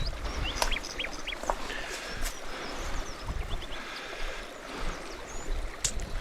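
Small birds chirping, with many short whistled notes and quick rising and falling chirps, over a low irregular rumble.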